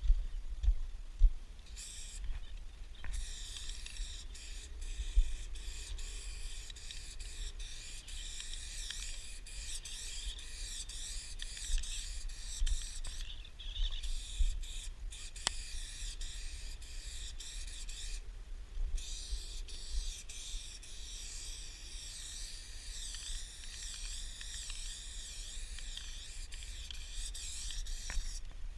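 Aerosol spray-paint can hissing in long continuous sprays, with brief breaks where the nozzle is let go, about three, thirteen and eighteen seconds in. Low rumbling and knocks sit underneath.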